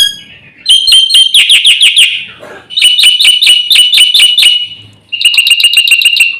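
Black-winged myna (jalak putih) singing a loud, harsh song in three runs of rapid repeated notes, about eight a second, each run lasting one to two seconds with short pauses between.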